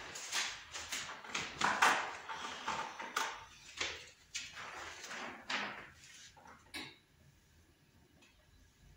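A run of short rustling and scraping handling noises, close to the microphone, dying away about seven seconds in.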